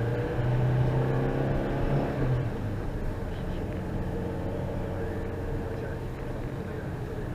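Car engine running, with a steady pitched hum for the first two and a half seconds that then gives way to a steady low rumble.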